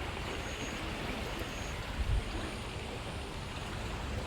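Stream water flowing in a steady rush, with a low rumble underneath and a single dull thump about two seconds in.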